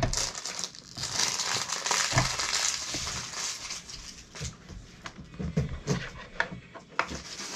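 Clear plastic packaging crinkling as it is handled for a couple of seconds, followed by scattered light clicks and knocks.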